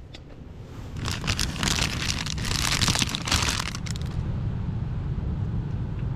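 Strong wind rumbling on the microphone, with a loud crinkling, crackling rustle for about three seconds from about a second in.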